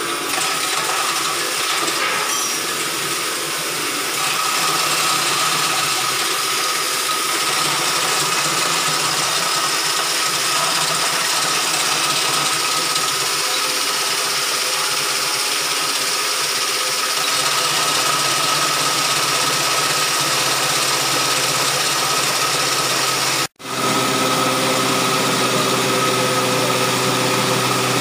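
Stainless-steel pepper grinding mill running steadily while grinding peppercorns fed from its hopper, a loud continuous whirring hum. It cuts out for an instant near the end, then runs on.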